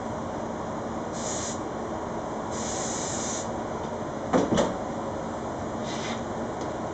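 Gravity-cup spray gun hissing in three short bursts as clear lacquer is sprayed onto a guitar body, over a steady background rush.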